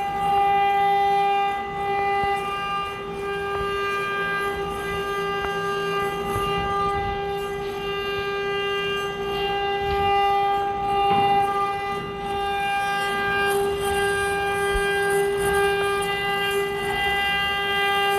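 CNC router spindle whining at one steady pitch while it cuts a wooden charpai leg, with a rough cutting noise and small ticks beneath the whine.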